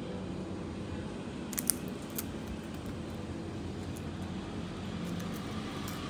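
A pet bird's beak clicking sharply as it snaps up dried insects from an open palm: three quick clicks about a second and a half to two seconds in. A steady low hum runs underneath.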